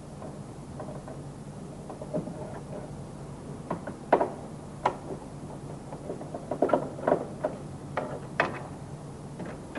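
Irregular clicks and knocks of hard plastic interior trim being worked loose by hand, the hood-release buttons and main-bearing cover of a Golf Mk1 Cabriolet, coming thicker in the second half, over a steady low hum.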